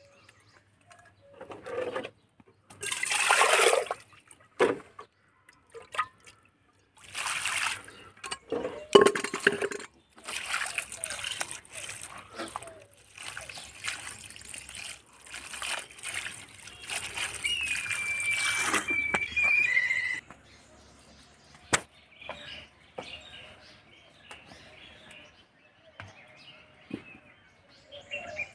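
Cold water poured from a pot over boiled spinach in a plastic colander, splashing through the leaves onto the ground in several pours, the longest lasting several seconds.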